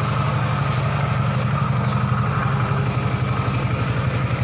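Hero Splendor Plus BS6 motorcycle's single-cylinder engine idling steadily with an even beat.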